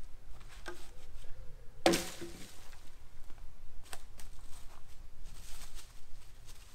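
Branches being snapped and handled: a loud crack about two seconds in, a sharp snap about four seconds in, and rustling of leafy boughs and footsteps on leaf litter between them.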